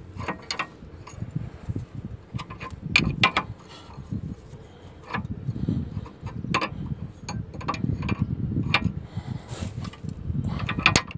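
Irregular metal clicks and clinks of an open-end wrench working the nut on a steering tie rod end, tightening it.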